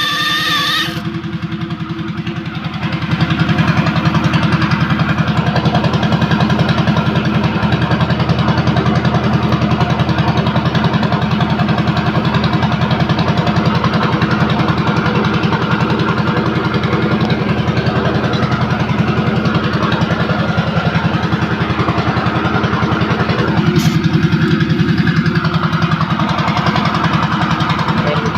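A small engine running steadily, with a fast, even beat of firing strokes. It gets louder about three seconds in.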